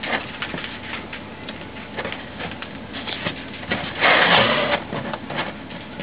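A chick hatching from its egg, scratching and tapping irregularly against the shell, with a louder rustling scrape about four seconds in.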